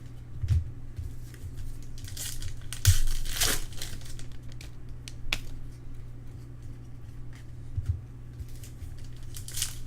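Foil trading-card pack wrappers being torn open and crinkled, in short rustling bursts with a few sharp taps from handling, over a steady low hum.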